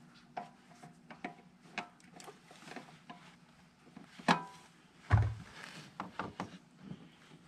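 Light scattered clicks and knocks of a hand working at the oil filter and nearby parts in a mini excavator's engine bay, with a sharper knock about four seconds in and a dull thump about a second later.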